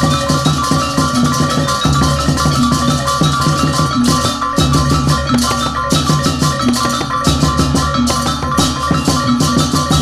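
Procession music led by fast, driving drumming on double-headed barrel drums (kendang), with steady held tones sounding above the beat.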